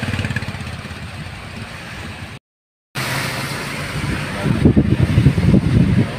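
Car driving on a wet road, heard from inside through an open window, with engine and road noise. A second of dead silence about two and a half seconds in marks an edit, and the rumble grows louder and more uneven in the second half.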